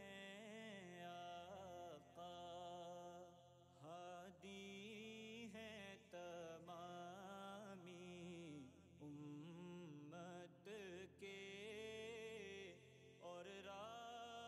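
Quiet background music: a voice chanting a slow, winding melody, broken by short pauses.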